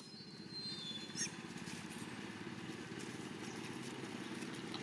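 A motor engine running steadily in the background, a low even drone. A brief high squeak comes about half a second in, and a single click a little after a second.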